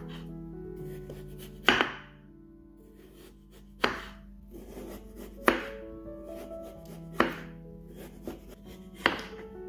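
Chef's knife slicing through a peeled raw potato and knocking on a wooden cutting board: five sharp cuts, one every second and a half to two seconds.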